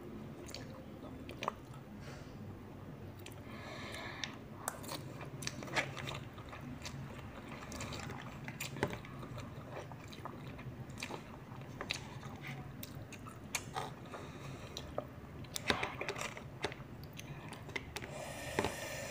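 Close-miked eating of noodles: wet chewing and slurping, with many small clicks and taps of a metal fork against a paper takeaway box.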